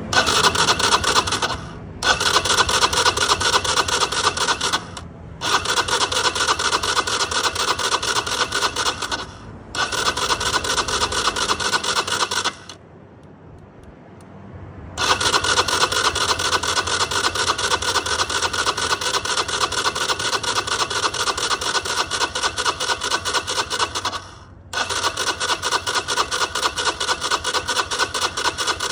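Starter motor cranking a cold engine that is hard to start. There are about six long runs of fast, even cranking, each broken by a short pause, with a longer rest about halfway through.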